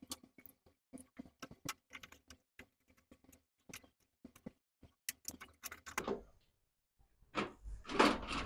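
Scattered light clicks and taps of a screwdriver and cable being handled in a metal meter box and against its DIN-rail switch, then a brief rustling, scraping noise near the end.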